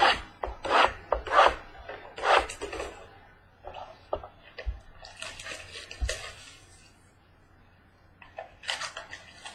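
Rustling and crinkling of trading-card boxes and packs being handled, in irregular bursts, louder at first, with a short lull about seven seconds in.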